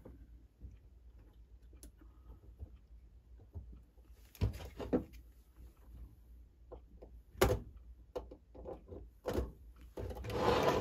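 Faint scattered clicks and taps of small metal parts and tools being handled while a clock movement is taken apart, with a few louder knocks about four and a half and seven and a half seconds in and a short scraping rustle near the end.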